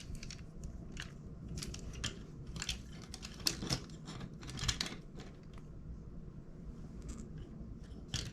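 Plastic Transformers Ratchet figure being handled: a scattered series of light clicks and short scrapes from its parts and joints moving.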